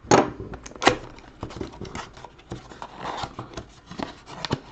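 Small cardboard trading-card box being handled and opened on a wooden tabletop: a string of light taps, scrapes and crinkles, the sharpest about a second in.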